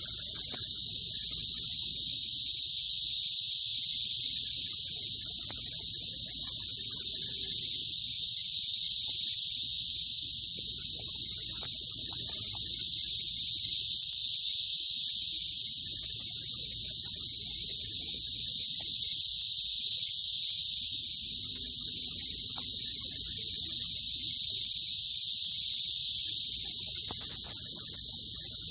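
Loud, continuous chorus of cicadas (called locusts): a steady, high-pitched buzz that swells and eases slowly.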